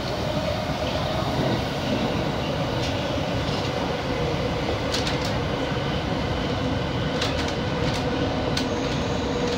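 Tokyo Metro 1000-series subway train running through a tunnel, heard from inside the car: a steady rumble with a held hum throughout. A few sharp clicks come in the second half as the wheels pass over rail joints.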